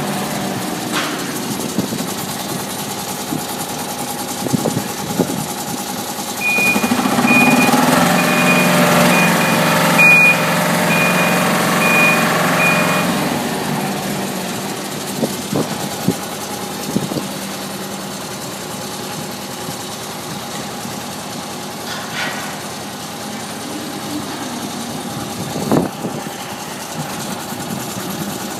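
Machinery running with a steady hum. About a quarter of the way in it swells louder for some six seconds while a warning beeper sounds repeatedly, about once a second. Scattered metallic knocks are heard throughout.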